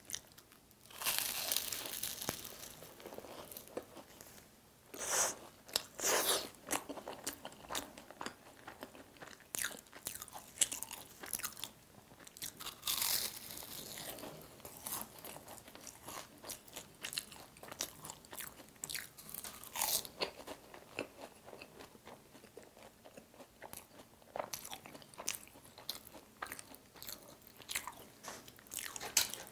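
Close-miked biting and chewing of KFC egg tarts: the crisp, flaky pastry crust crunches and crackles. There are a few loud crunching bites and many smaller crackles of chewing between them.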